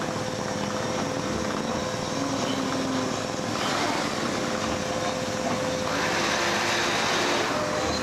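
Noise-art performance: a dense, steady wash of electronic noise with one held tone running through it, swelling brighter and louder about six seconds in.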